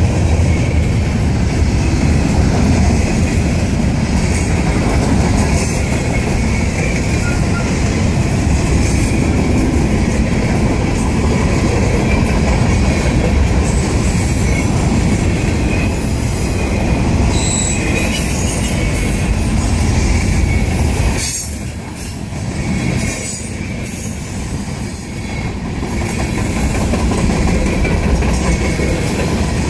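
Freight train cars (covered hoppers, boxcars and tank cars) rolling past close by: a steady rumble of steel wheels on rail with wheel squeal. The noise dips briefly about three-quarters of the way through, then picks back up.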